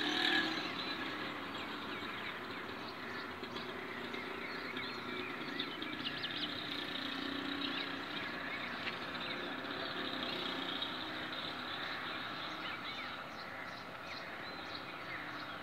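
Outdoor ambience of many birds chirping over a steady low background noise.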